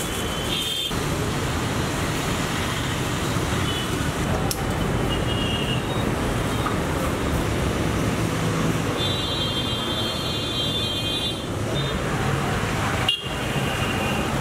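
Steady street traffic noise, vehicles passing on the road, with a high steady tone for about two seconds past the middle.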